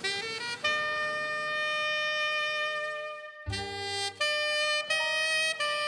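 Background music: a jazz tune led by a saxophone playing long held notes, with a brief break about three and a half seconds in before lower notes and a bass line come in.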